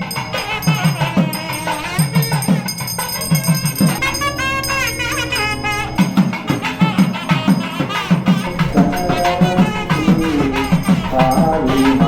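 Background music with a steady drum and rattle beat; a melody comes in over it later on.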